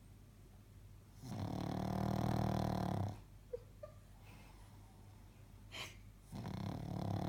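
Six-month-old pug snoring in deep sleep: two long, low, buzzing snores about five seconds apart, the first about a second in and the second starting near the end, with a couple of small squeaks between them.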